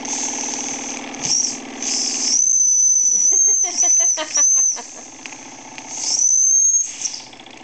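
Steam whistle on a vintage Wilesco toy steam engine's boiler blown in several high blasts: a couple of short toots, a long blast broken by brief gaps about two and a half seconds in, and one more near the end. Between the blasts the little engine's steady running is heard.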